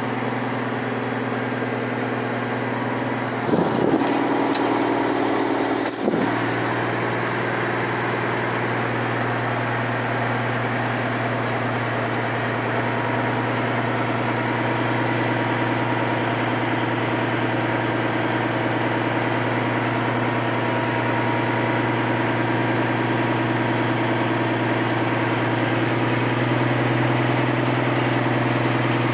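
A vehicle's engine running steadily in first gear while it creeps along, heard from inside the cab. There are two brief knocks, about four and six seconds in.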